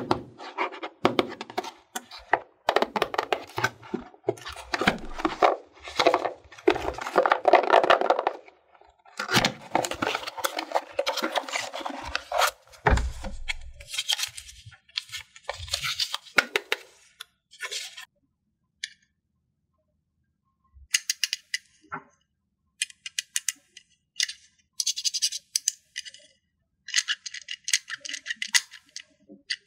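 Rustling and crinkling of cardboard packaging and paper cards being handled, with a soft thump about halfway. Then, after a pause, a run of short, crisp scratchy clicks from handling a small plastic toy.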